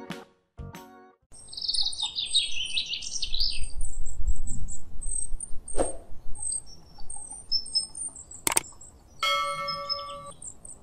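Small birds chirping and twittering, with a low rumble around the middle. Near the end, a subscribe-button sound effect: a sharp click followed by a short bell-like chime.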